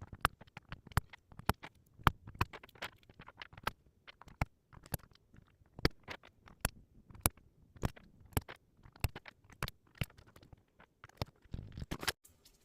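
Typing on a Zuoya GMK67 mechanical keyboard fitted with Haimu Midnight switches and Apple-style keycaps: sharp, uneven keystroke clicks, about two to three a second, coming faster near the end.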